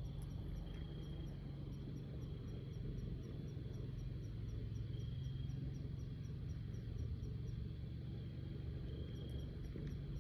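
Steady outdoor background with a low rumble and a faint, regular high-pitched ticking, about three ticks a second. A faint high tone swells briefly three times.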